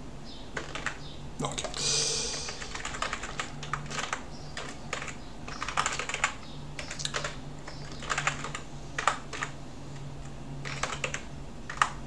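Typing on a computer keyboard: short bursts of key clicks separated by brief pauses. A brief hiss about two seconds in, over a faint steady low hum.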